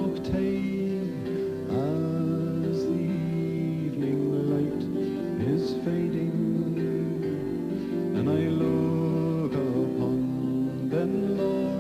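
Background music: a folk song with acoustic guitar and a singing voice.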